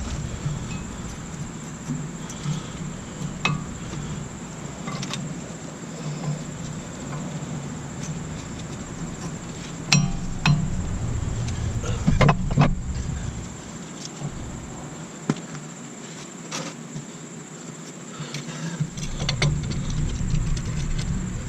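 Scattered metal clinks and knocks of hand tools and brake parts being handled during a front brake job. There is a sharp cluster about twelve seconds in, over a steady low hum.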